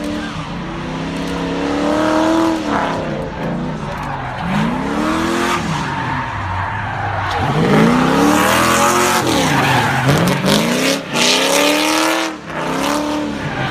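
Drift car's engine revving up and falling back again and again as the car slides, with its tires screeching through a long skid in the middle.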